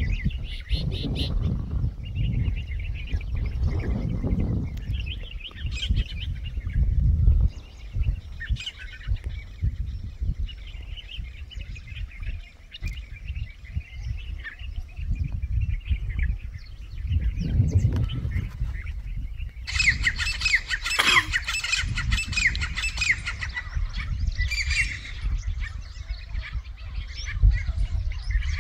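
Grey francolins calling during a territorial scuffle between rival flocks: scattered calls, then a loud burst of rapid repeated harsh calls about twenty seconds in, lasting a couple of seconds, with more calls after. A gusting low wind rumble sits on the microphone underneath.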